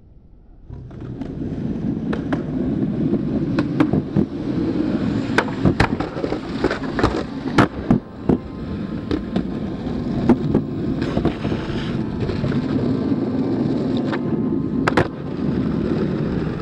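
Skateboard wheels rolling over rough pavement with a steady rumble that starts about a second in. Through the middle come many sharp clacks of the board's tail and wheels hitting the ground as tricks are popped and landed.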